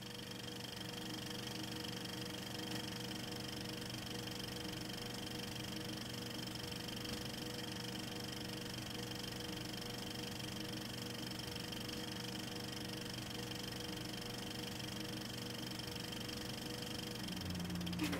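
A steady machine hum, as from a small motor running evenly, holding several fixed tones at once; near the end one tone drops out and the hum shifts.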